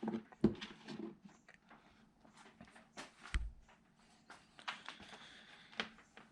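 Scattered small clicks and taps of wires and connectors being handled and fitted to an automotive relay's terminals, with one duller thump a little past three seconds in.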